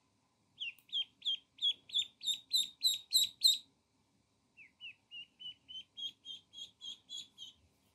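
Ducklings peeping: a run of about ten short, falling peeps, about three a second, growing louder. After a pause of about a second comes a second, softer run of about ten peeps.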